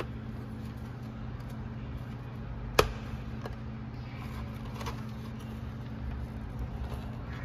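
One sharp click about three seconds in, with a few fainter clicks, as a new dashboard air vent and its ring are worked into place by hand. A steady low hum runs underneath.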